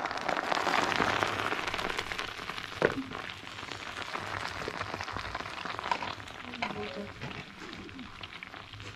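Hot oil poured into a hollow in crumbled flatbread, sizzling and crackling as it foams through the crumbs. The sizzle is loudest at first and slowly dies away, with one sharp knock about three seconds in.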